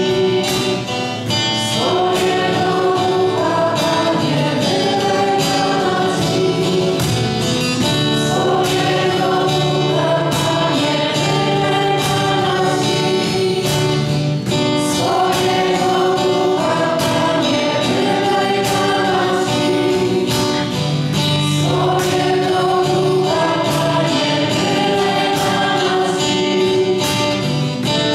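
Choir singing a worship song over instrumental accompaniment with a steady beat.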